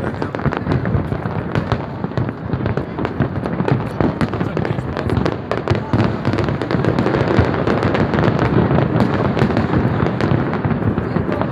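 Fireworks display: a dense, continuous barrage of bangs and crackles, many overlapping every second with no pause.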